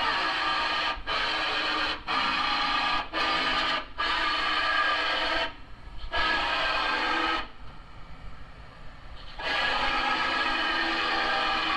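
Power grinding tool on sheet metal, cleaning the panel's mating flanges. It runs in on-off bursts of about a second each, then in longer runs, with a stop of about two seconds past the middle.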